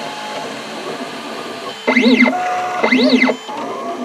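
Ultimaker 2 3D printer printing: a steady mechanical whir, with two louder whines about two and three seconds in, each rising and then falling in pitch as the stepper motors speed the print head up and slow it down.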